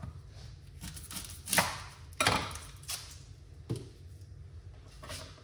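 A few irregular knocks and clatters of kitchen utensils on a chopping board and worktop, about five in all, the loudest about a second and a half in.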